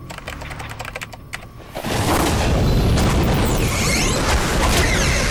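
Cartoon sci-fi sound effect: a fast crackle of electronic clicks, then about two seconds in a sudden loud rumbling boom that carries on with sweeping, shimmering whooshes over it.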